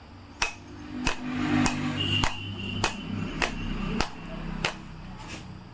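A small hammer repeatedly tapping the glass back panel of an iPhone XS, about nine sharp knocks evenly spaced a little over half a second apart.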